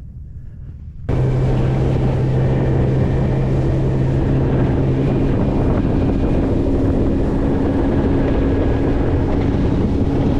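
Boat motor running with the boat under way, with heavy wind buffeting the microphone. It comes in suddenly about a second in, and the engine's steady tone shifts higher about halfway through.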